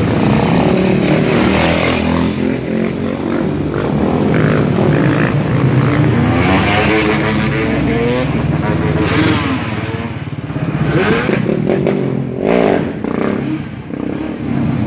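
Motorbike engines, a dirt bike among them, revving loudly with the pitch repeatedly rising and falling as the bikes ride past.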